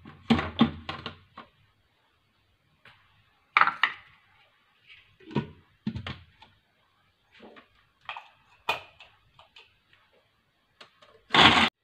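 Scattered knocks, thuds and clatters of kitchen things being handled, with a loud half-second burst of noise near the end.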